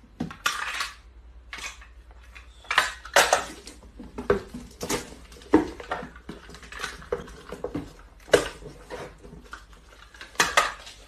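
Packing tape being pulled off a handheld tape dispenser and cardboard boxes being handled: irregular short rasps and knocks, a fresh one every second or so.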